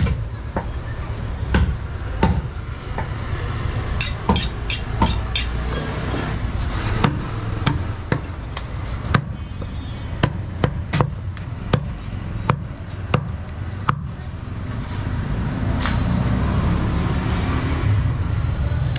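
Irregular sharp knocks of butcher's blades striking a wooden chopping block while a goat leg is cut up, with a quick run of knocks about four seconds in. From about fourteen seconds the knocks thin out and a steady street and traffic rumble fills in.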